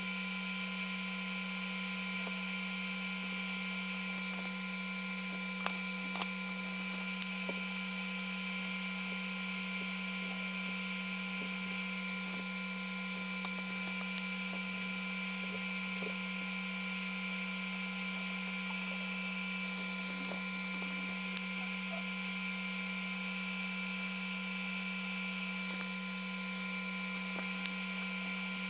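Steady electrical hum of a TIG welding setup, with a faint hiss that comes and goes and a few light clicks.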